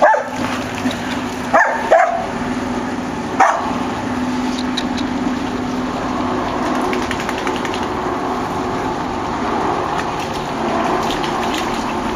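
Dogs playing, with a few short barks in the first four seconds, two close together and then one more. A steady background noise follows.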